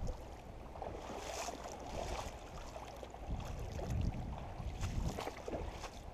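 Wind rumbling on the microphone over the flow of a shallow, rocky creek, with irregular scuffs and knocks.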